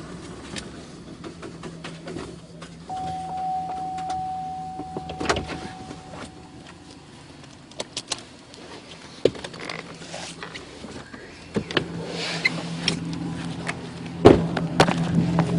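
Pickup truck engine idling, with scattered clicks and knocks, a steady tone for a few seconds, and a loud sharp knock near the end as the engine hum grows louder.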